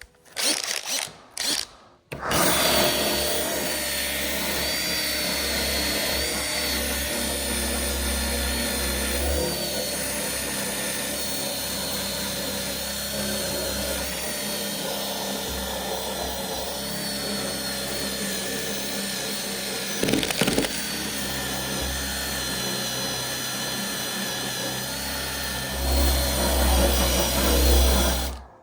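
A power tool runs steadily with a high whine after two short bursts in the first two seconds. It gets heavier near the end, then cuts off.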